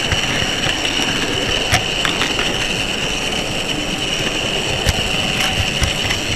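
Model railway locomotive carrying the camera running along the track: a steady motor and gear whine with a few sharp clicks as the wheels pass over rail joints and points.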